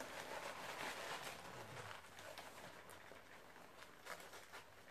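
White packing wrap rustling and crinkling as it is pulled open by hand. It is loudest in the first couple of seconds, then softer crackles and small clicks follow.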